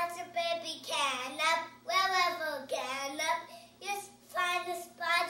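A three-year-old boy singing on his own, with no backing music, in short phrases with brief breaks. Some notes are held and slide up and down in pitch.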